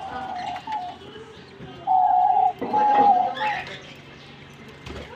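Pet lovebirds calling: a few held, flat-pitched calls, the loudest two coming about two and three seconds in.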